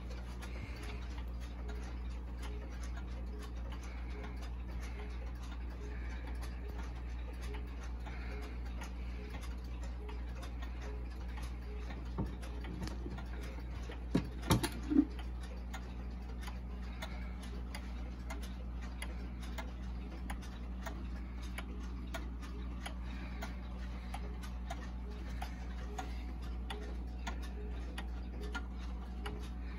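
Korean regulator pendulum wall clock ticking steadily. A few louder sharp knocks come about halfway through.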